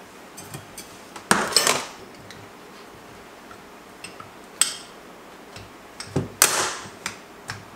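Small hard clicks and clinks of a two-stroke carburetor's choke being fitted and worked by hand, with metal parts knocking against each other. The clicks come scattered and irregular, with two louder clattering moments, one about a second and a half in and one about six seconds in.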